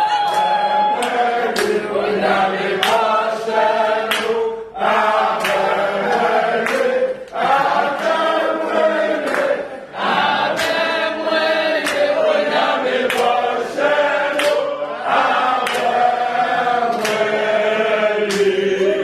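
A group of people singing a celebratory chant together, with sharp claps recurring through it.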